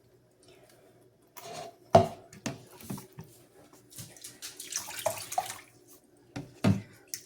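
Water splashing and sloshing in a kitchen sink as a puppy is bathed, in irregular splashes that are loudest about two seconds in and again near the end.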